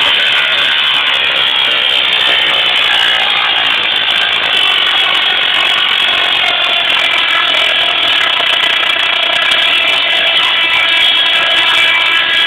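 Musical Tesla coil playing a tune through its sparks, holding several pitched notes at once that shift and glide.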